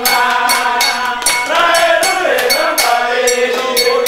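Ritual chant sung by voices over a steady metallic percussion beat, about three strikes a second.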